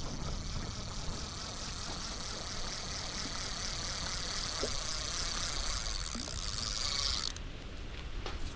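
Light rain falling on the water and concrete, a steady hiss with a low rumble. Over it runs a high pulsing buzz, about four pulses a second, that stops abruptly about seven seconds in.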